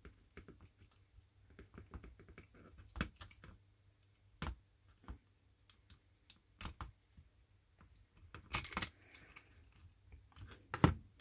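Side cutters clicking and snipping at a lithium-ion cell's plastic insulation wrap and solder tabs, with irregular handling clicks and small snaps. The loudest snap comes near the end.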